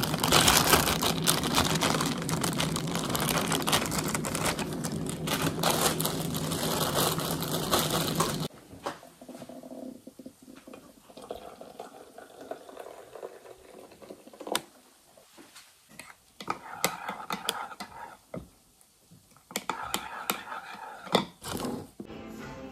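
Electric kettle running loudly as it heats, switching off abruptly about eight seconds in. After that a plastic bread bag crinkles, with scattered light clicks and water being poured from the kettle.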